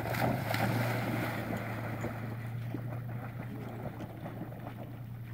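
Boykin Spaniel splashing into a pond and swimming out: a burst of splashing water at the start that dies down to quieter paddling and lapping. A steady low hum runs underneath.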